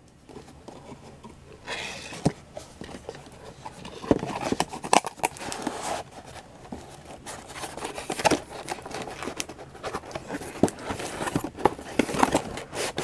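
Cardboard box and packaging being handled and opened by hand: irregular rustling, scraping and sharp taps.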